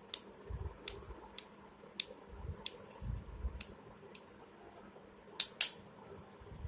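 Scattered sharp clicks and taps of a small tool and parts against a flip phone's casing as it is taken apart, with a few soft thumps and two louder clicks close together about five and a half seconds in.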